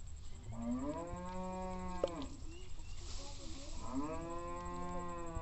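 A cow mooing twice: two long calls of roughly a second and a half each, about two seconds apart, each rising at the start and sliding down at the end.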